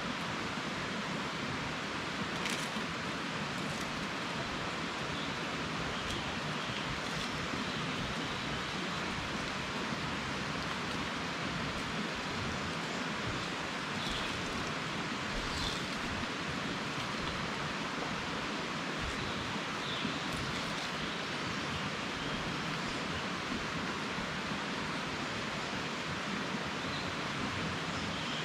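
Water falling steadily into a fish pond, a constant even rush, with a few faint short high sounds here and there.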